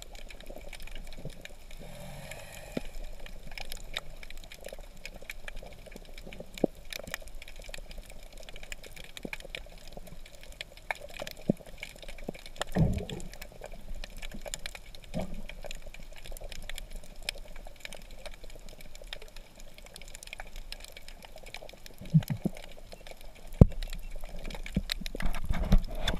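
Underwater ambience heard from a camera below the surface: a steady wash of water with many scattered sharp clicks and crackles, a low thump about halfway through and several louder low thumps and surges near the end.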